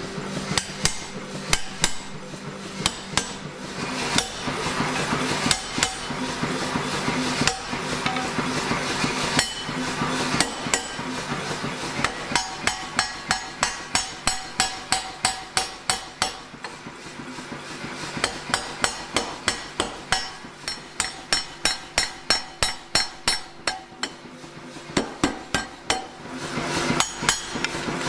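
Power hammer striking red-hot steel bar stock, a fast, even run of blows, about four a second in its busiest stretches, over a steady low hum.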